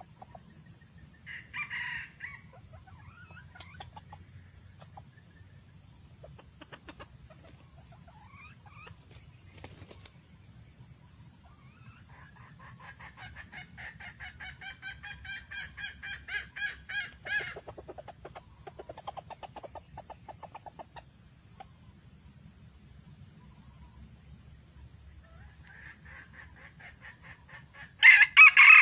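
Junglefowl crowing and clucking: a short call about two seconds in, a run of quick repeated calls in the middle, and a loud crow at the very end.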